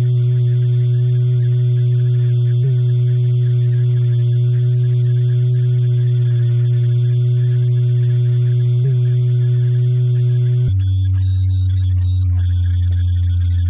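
A single kick drum rendered through thousands of chained FL Studio Soundgoodizer plugins, crushed into a loud, steady low drone like mains hum, with a faint blip twice. About ten seconds in it drops abruptly to a lower, buzzier drone with crackling static on top.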